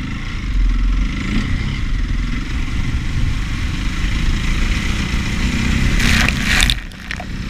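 KTM 530 EXC dirt bike's single-cylinder four-stroke engine running under throttle. About six seconds in, a loud splash of water sprays up as the bike rides through a puddle, and the sound dips briefly just after.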